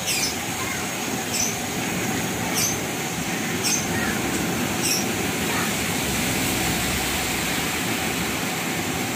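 Sugar syrup with pandan leaves heating in a large aluminium pot on a stove, a steady hiss and bubbling as it comes up to the boil. A short high chirp sounds five times, about a second apart, in the first half.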